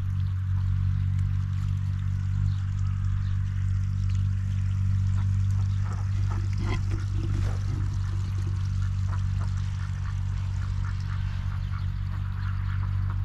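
Ducks quacking in a short flurry partway through, over running or trickling water and a steady low hum.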